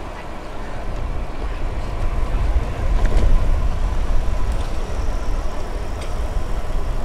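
Riding noise of a bicycle on an open road: wind rumbling on the microphones over the hum of the ride, growing a little louder about two seconds in.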